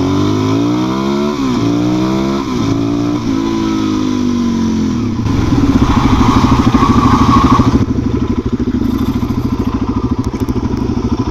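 Suzuki DR-Z400 single-cylinder engine pulling away, revving up and shifting up about three times in quick succession. From about halfway it turns into a loud, even low-pitched chugging that then eases a little.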